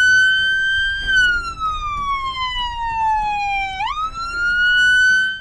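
Police car's electronic siren wailing from its front-mounted speaker: a loud tone that holds high, glides slowly down for nearly three seconds, then sweeps quickly back up near the end.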